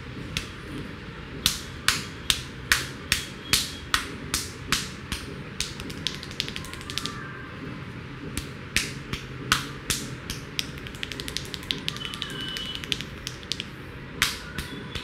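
Hands slapping and tapping a head during a vigorous barber's head massage: a run of sharp slaps, about two or three a second, then a quicker patter of lighter taps, and one more hard slap near the end.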